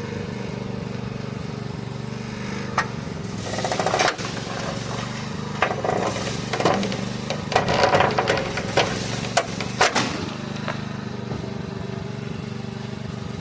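An engine idling steadily throughout, with a run of sharp metal bangs and scraping between about three and ten seconds in as the crushed front bumper of a Ford F-150 is worked away from the front tire.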